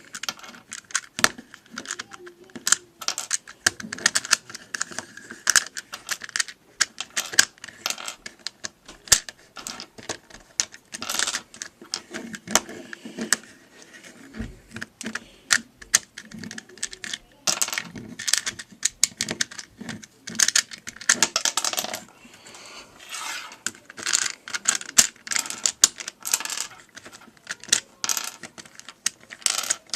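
Plastic pieces of a LanLan Rex Cube twisty puzzle clicking and clattering in quick, irregular bursts as its layers are turned and pieces are popped out for disassembly.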